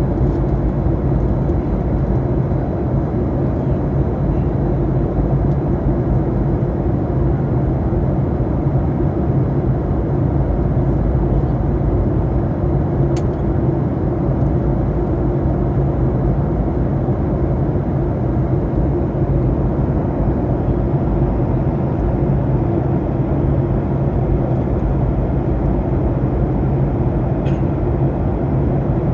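Steady cabin drone of an airliner in flight: even engine and airflow noise with a constant low hum.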